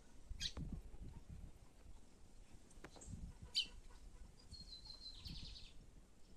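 Small caged songbirds calling: two sharp, high chirps about three seconds apart, then a short buzzy trill near the end, over a faint low rumble.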